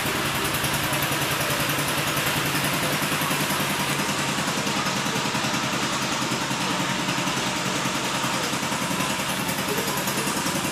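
Honda Biz 100's single-cylinder four-stroke engine idling steadily through a Roncar 'estalinho' aftermarket exhaust, with an even, fast firing pulse.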